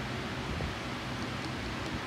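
Steady background hiss with no distinct event, broken only by a faint tick or two.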